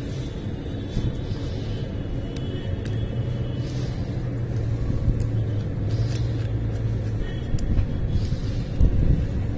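A steady low rumble in the background, with a few light metallic clicks as small nuts are spun off a plastic motor mounting plate by hand and set down on concrete.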